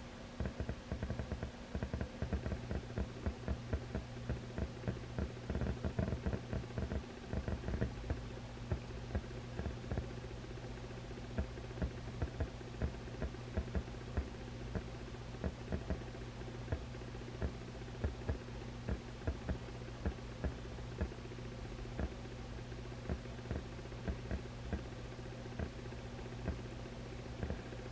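Vintage tube amplifier idling with a steady low hum and hiss, broken by irregular crackling pops. The pops come thick and fast for the first several seconds, then thin out to a few scattered ones a second.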